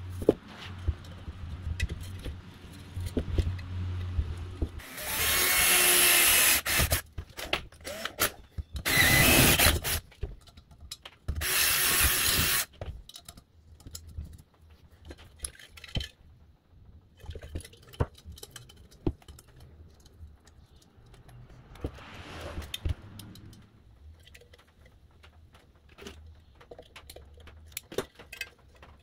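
A power drill runs in three short bursts, about five, nine and eleven seconds in, boring into the brass tank of an old blowtorch. Between and after the bursts come scattered small clicks and knocks of parts and wires being handled.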